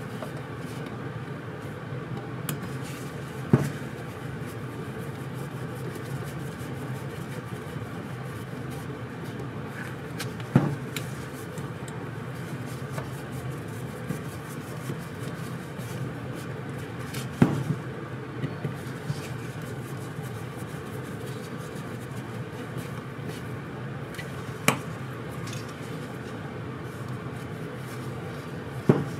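Steady hum with five short sharp clicks about seven seconds apart, from a screwdriver and a small scooter carburetor being handled on a workbench.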